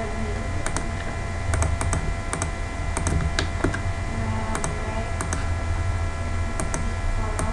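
Computer keyboard and mouse being worked: about a dozen short, irregular clicks, some close together in pairs, over a steady low hum.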